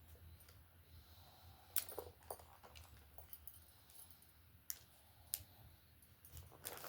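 Small metal clicks, a few at a time and irregular, from split-ring pliers prising open a steel split ring, over a low steady hum.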